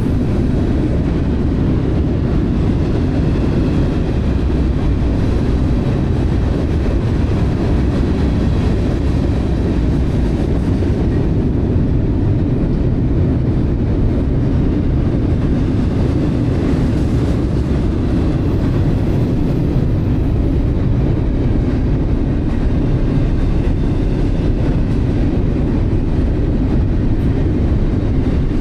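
Freight train rolling past: a loud, steady rumble of the train and its cars on the rails.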